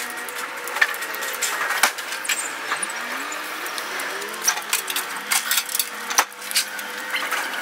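Scattered sharp clicks and knocks as a truck driver walks up and handles the front of his curtainsider trailer, over a faint steady hum of idling truck engines.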